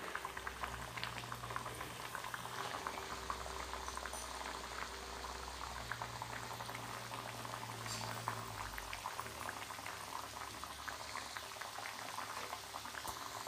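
Wheat-flour biscuits deep-frying in hot oil in a kadai, the oil bubbling and crackling steadily.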